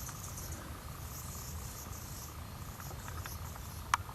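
Insects chirping in fast high-pitched pulses over a low rumble, with a sharp click near the end.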